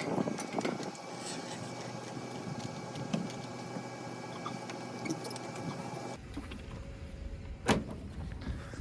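Van engine idling steadily. About six seconds in the sound changes abruptly to a low rumble, and a single sharp knock follows a little over a second later.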